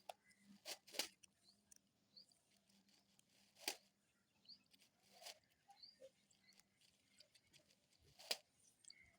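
Birds feeding: a handful of sharp taps, like beaks pecking at food on a hard surface, spread unevenly over several seconds, with faint high chirps between them.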